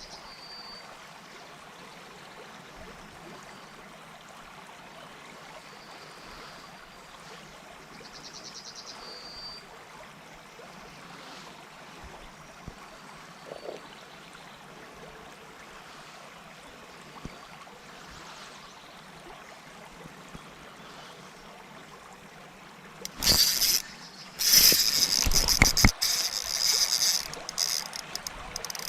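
Steady sound of flowing river water, with a couple of faint short high trills. About 23 seconds in, a loud, uneven whirring rattle starts and runs on: a spinning fishing reel being wound in.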